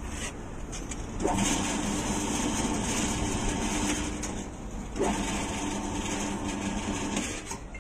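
Electric rebar bending machine running twice, each time for about three seconds: a steady motor-and-gear hum that starts with a sharp knock and then stops, the second run beginning about five seconds in.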